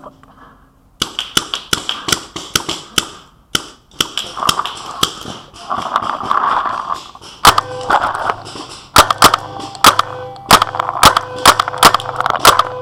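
Paintball guns firing: sharp pops in quick, irregular strings, some near and loud, others fainter.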